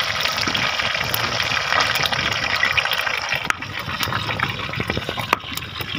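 Pieces of rohu fish deep-frying in a wok of hot oil: a steady, dense sizzle with fine crackling.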